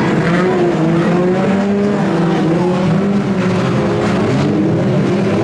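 BriSCA F2 stock car engines running hard as a pack races round the oval, a steady loud drone with several engine notes rising and falling against each other.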